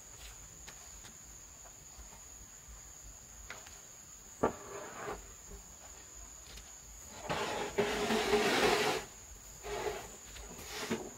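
A corrugated roofing sheet knocking against a timber frame, then scraping and sliding across the wooden rafters as it is pushed up onto the roof. The long scrape near the end is the loudest sound. Insects drone steadily at a high pitch throughout.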